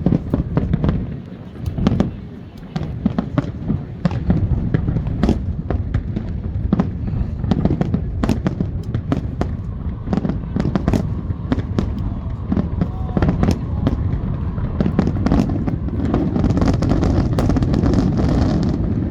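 Fireworks going off: a rapid, irregular string of sharp shell bursts and crackles, several a second, thickening into a dense continuous crackle near the end.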